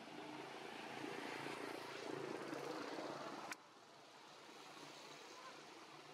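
Faint, steady engine drone that builds slightly, then breaks off with a sharp click about three and a half seconds in, leaving quieter background.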